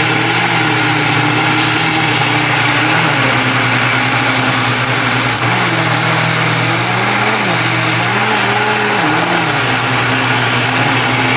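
Hommer countertop blender's motor running steadily at speed, its blades churning a thick crepe batter of milk, flour and egg.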